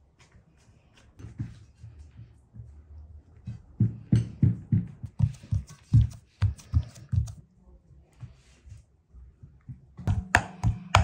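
Hands pressing and patting soft dough into a cast-iron pan: a run of dull, quick thumps of palms and fingers on the dough, about three or four a second. Sharp, ringing taps start near the end.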